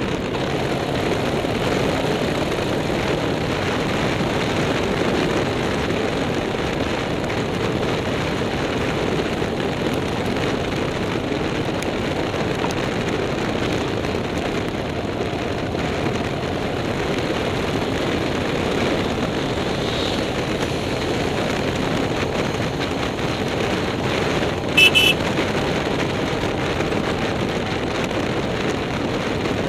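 Onboard sound of a vehicle climbing a mountain road: its engine running steadily under load with road and wind noise. About 25 seconds in there is one brief, loud, sharp sound.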